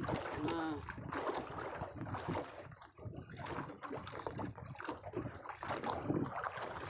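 Wind buffeting the microphone and sea water slapping around a small open boat, with a man's brief call about half a second in.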